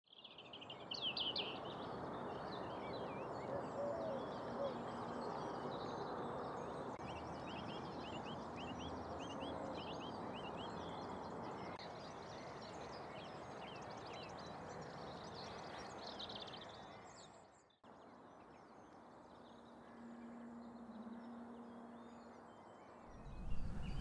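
Small birds calling and singing, with quick repeated chirps, over a steady rushing background noise of open countryside. About two-thirds of the way through it drops abruptly to a quieter background with only a few faint calls.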